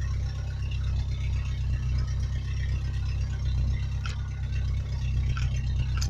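Vehicle engine running steadily at low revs, a constant low hum, with a couple of light clicks in the second half.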